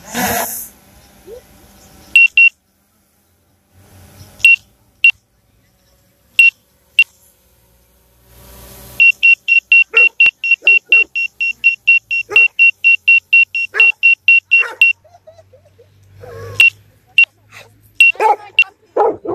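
Short high-pitched electronic beeps, all at one pitch. A few come singly at first, then a fast run of about four a second lasts some six seconds, then a few more. A dog barks near the end.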